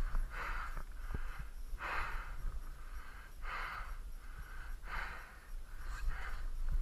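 A person breathing hard from exertion, one heavy breath about every second and a half, close to a helmet-mounted microphone.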